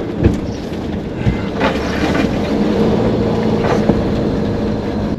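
Westfalia camper van's engine running while driving, with repeated knocks and rattles over the steady hum. The occupants blame the rattle on the muffler and exhaust system.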